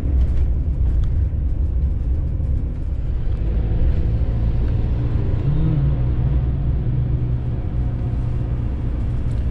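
Peugeot Boxer camper van driving, heard from inside the cab: steady low engine and road noise, with the engine note rising briefly about halfway through.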